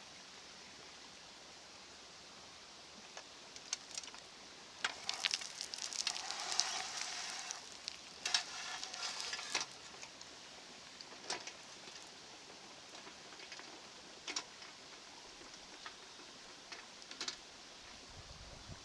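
Loose gravel and small stones pouring and scraping as a model excavator digs and dumps, in two stretches of about two seconds and one second, with scattered clicks of single stones.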